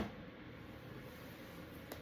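A single sharp knock right at the start, then faint room noise with one small tick near the end.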